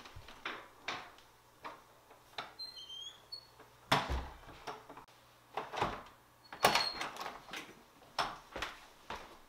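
Footsteps on a wooden floor and wooden panel doors being handled, about two knocks a second. There is a loud thump about four seconds in and another near seven seconds, with a few brief high squeaks between them.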